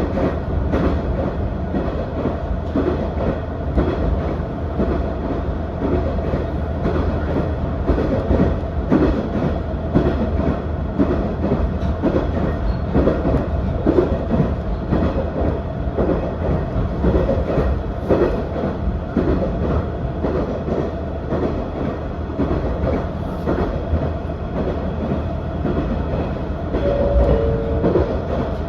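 KiHa 110 series diesel railcar running at speed: a steady low engine hum under rolling wheel-on-rail noise, with frequent wheel clicks over rail joints. Near the end a short two-note chime sounds, falling in pitch.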